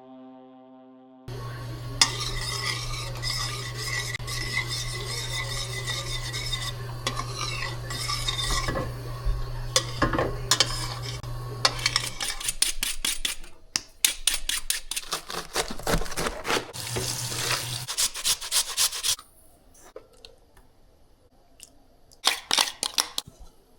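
A metal spoon stirring and scraping in a pot, clinking against the pan, over a steady low hum. From about halfway in come quick, even scraping strokes, ending in a few scattered clinks.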